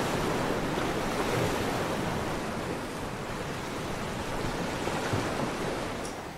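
Steady rushing wash of ocean surf, easing a little near the end.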